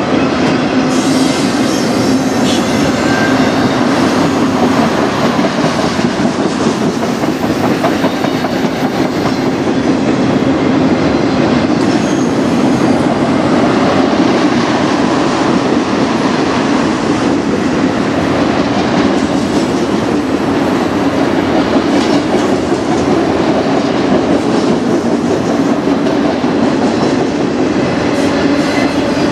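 Freight train of autorack cars rolling past at close range: a loud, steady rumble of steel wheels on the rails as car after car goes by.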